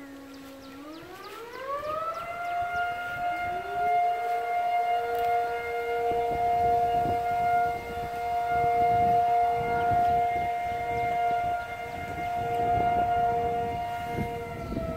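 Outdoor civil-defense siren sounding a tornado warning: it winds up from a low pitch about a second in to a steady two-note wail, holds it, and begins to wind down near the end.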